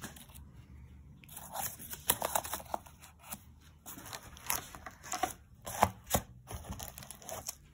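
Plastic stretch wrap and cardboard of a shipping box being handled: irregular crinkles, scrapes and light taps, sparse at first and busier from about a second in.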